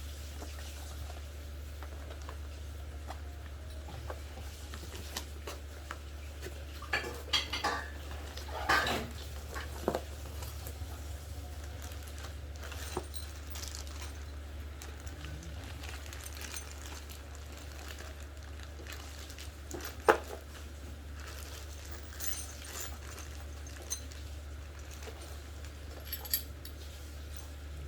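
Metal parts of an angle-grinder chainsaw adapter clinking and knocking as they are handled, in scattered clusters with one sharp clink about two-thirds of the way through, over a steady low hum.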